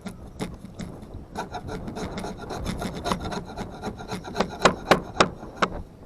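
A hand tool scraping a hard surface in quick, repeated strokes, a few a second, with several louder strokes a little after the middle.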